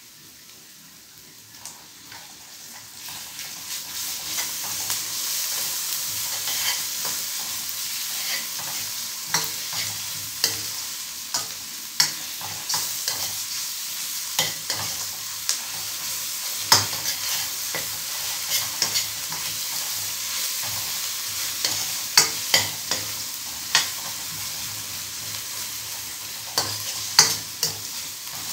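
Ginger-garlic paste and onions frying in hot oil. The sizzle builds up over the first few seconds and then holds steady, while a utensil stirs the pan with frequent sharp clicks against it.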